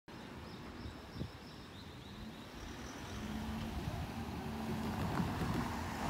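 Street traffic: car and truck engines and tyres running, with a low hum and rumble that grows louder as vehicles approach toward the end. There is a brief knock about a second in.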